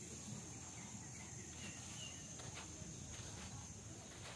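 Faint outdoor ambience with a steady, high-pitched insect drone, and a few faint high chirps between one and a half and two seconds in.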